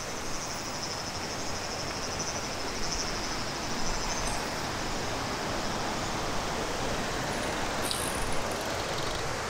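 A steady, even rushing noise with no distinct events, typical of outdoor ambience such as running water or wind.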